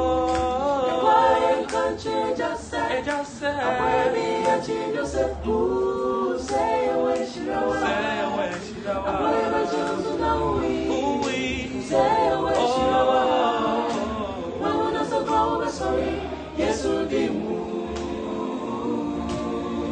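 Small mixed a cappella vocal group, men and a woman, singing a Twi gospel song in several-part harmony with no instruments.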